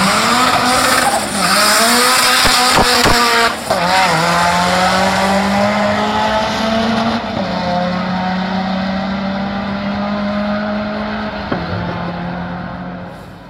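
Opel Corsa A GSI engine revving hard, its pitch rising and falling for the first few seconds with tyre squeal, then holding a steady high note. The sound cuts off suddenly near the end.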